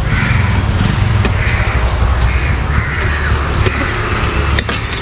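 Crows cawing, about four harsh calls spaced roughly a second apart, over a steady low rumble, with a few sharp clicks near the end.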